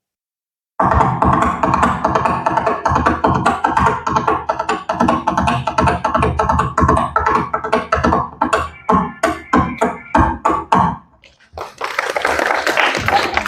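Coconut shell halves clopped together as Foley horse hoofbeats on a hard surface, a fast galloping clatter over music. The clatter stops about 11 s in, and a short burst of crowd noise follows near the end.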